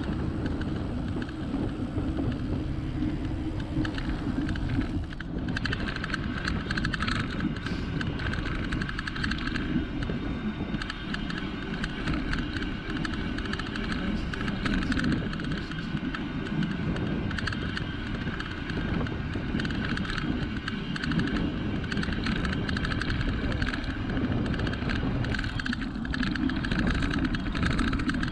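Rolling noise from an e-cargo bike's tyres on asphalt, with the bike rattling over the surface. The first few seconds are on the smooth road carriageway. From about five seconds in, the bike is on a rough, coarse-surfaced bike path, which is noisier and full of small rattles.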